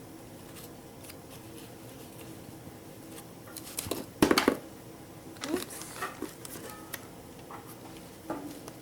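Light clicks, taps and knocks of a small plastic or resin miniature microwave being handled and set in place in a dollhouse kitchen, with the loudest cluster of clicks about four seconds in.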